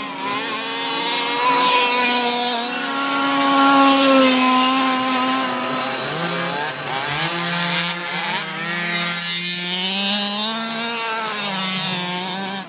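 Small engines of radio-controlled cars racing, buzzing, with the pitch rising and falling as the throttle changes; at times more than one engine is heard at once.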